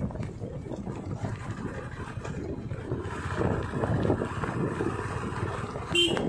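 Wind rushing over the microphone of a moving motorcycle, with a steady low rumble from the ride along the road.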